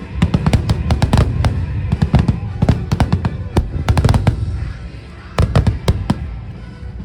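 Fireworks going off in rapid clusters of sharp bangs and cracks over a music soundtrack, easing briefly about five seconds in before another quick burst.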